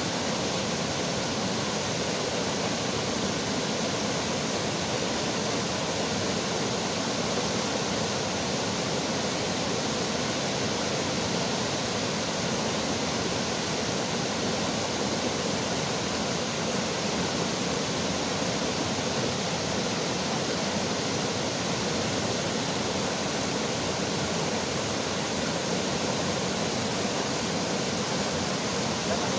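Shallow mountain river rushing steadily over rocks in white-water rapids.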